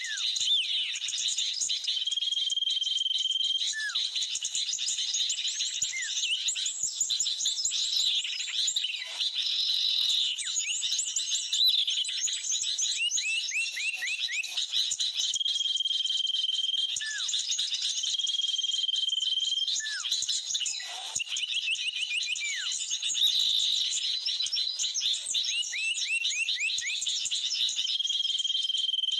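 Dense chorus of small-bird chirps and calls: a held whistle note recurs several times, among quick runs of falling notes and single downward-sliding calls.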